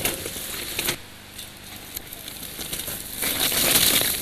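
Downhill mountain bike crashing on a rocky trail: scattered clicks and clatter of bike and stones, then a louder scraping rush of gravel about three seconds in.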